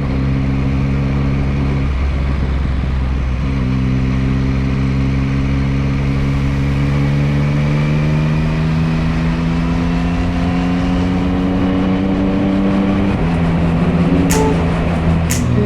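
Yamaha MT-09 inline-three engine running under way, its pitch climbing slowly as the bike gains speed. Its pitch drops briefly about two seconds in and again near the end. Heavy wind rumble on the microphone runs under it, and a few sharp clicks come in the last second or two.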